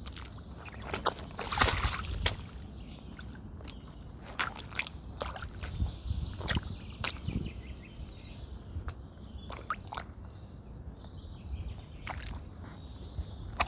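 Sneakers squelching and splashing in a shallow muddy puddle as the wearer treads and shifts their feet, in irregular wet steps; the loudest cluster comes about two seconds in.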